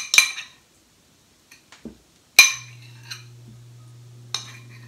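Metal utensil clinking and scraping against a glass mixing bowl as melted cheese is scraped out. A few quick clinks come at the start, then a single sharp clink about two and a half seconds in and another near the end. A low steady hum starts just after the middle clink.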